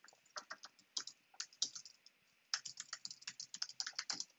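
Typing on a computer keyboard: a run of quick keystrokes, a short pause about two seconds in, then a faster, denser run of keystrokes near the end.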